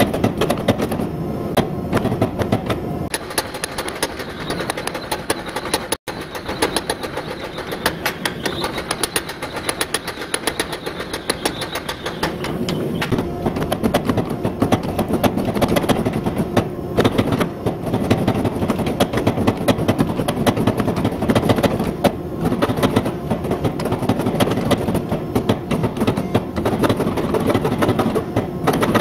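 Mechanical power hammer pounding a hot pattern-welded Damascus steel billet with rapid, steady blows, drawing it out. The sound drops out for an instant about six seconds in.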